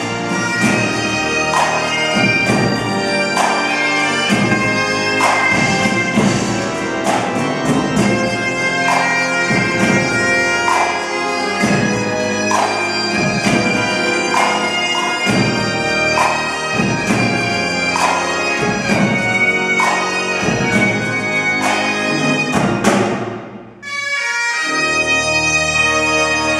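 Great Highland bagpipes playing a tune over the steady drones, with pipe-band snare and bass drums beating about once a second, and the pipe organ sounding along. Near the end the music stops with a falling wail, and a second or so later a steady held chord sounds again.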